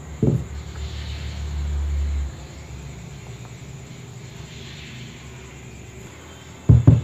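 Low thuds and rumbling from a bowl and a round non-stick baking pan being handled on a table while thick batter is poured in and spread with a spatula. There is a knock just after the start, then a low rumble for about two seconds, and two heavy knocks close together near the end.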